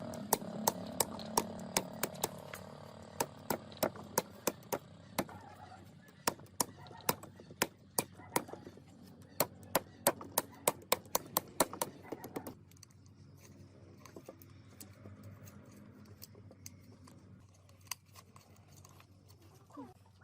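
A quick, irregular run of sharp clicks or taps, several a second, over a low steady hum; the clicks stop about two-thirds of the way through, leaving only the faint hum.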